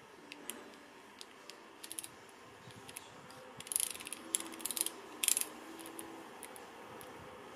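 Panasonic GH5's rear control dial clicking through its detents under a thumb: a few single faint clicks, then quick runs of clicks about two, four and five seconds in.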